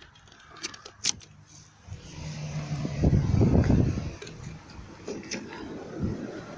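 Truck engine running with its exhaust system hanging loose. It swells to a loud rev about three seconds in, then settles back to a steadier run.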